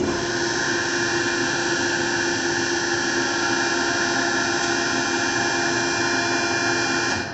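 Fox vertical hydraulic cardboard baler's electric hydraulic pump running with a steady whine, starting abruptly and cutting off near the end.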